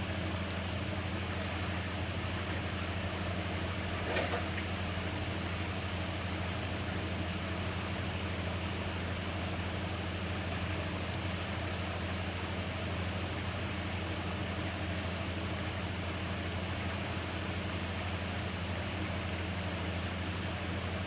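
Pots steaming on a stovetop: a steady hiss over a low hum, with one short clatter about four seconds in.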